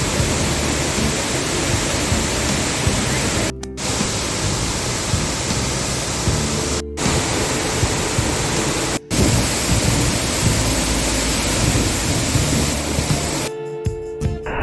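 Loud, steady rush of a waterfall, broken off three times for an instant by edits. Near the end it gives way to a quieter passage with music.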